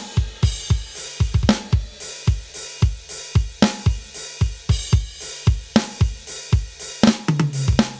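Aroma TDX-25 electronic drum kit playing its 'K10 Modern' preset voices under sticks: a steady rock groove of kick, snare and cymbals. Near the end it breaks into a tom fill stepping down in pitch.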